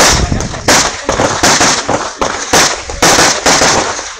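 Rapid pistol fire in a practical shooting match: sharp shots, several a second in uneven quick strings, each with a short ring of echo.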